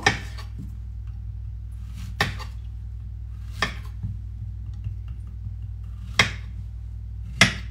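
Large kitchen knife chopping through a zucchini onto a cutting board, slicing it into thick rounds: five sharp chops at uneven intervals, over a steady low hum.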